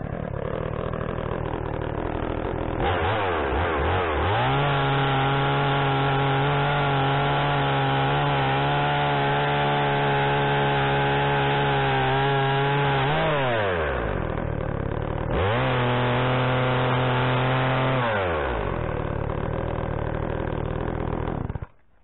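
Blue Max two-stroke gas chainsaw idling, then held at full throttle for about nine seconds while cutting through the end of a timber beam. It drops back to idle, revs up again for a few seconds, idles, and cuts off just before the end.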